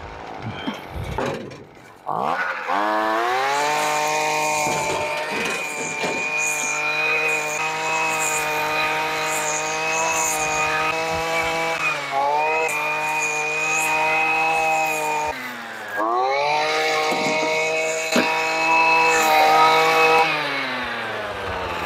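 Small gasoline engine revving up and running at high, steady speed, easing off twice and cutting out briefly about two-thirds of the way through.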